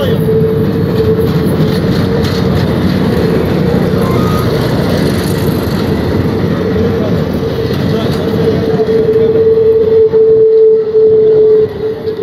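Passenger train coaches rolling slowly past close by, their wheels rumbling on the rails, with a steady squeal from the wheels that runs throughout. The squeal swells loudest about ten seconds in, then drops off abruptly near the end.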